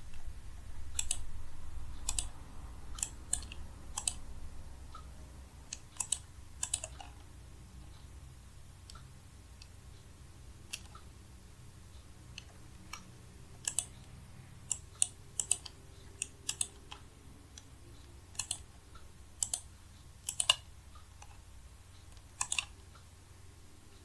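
Computer mouse clicking: sharp, irregular clicks, often in quick pairs, over a low steady hum.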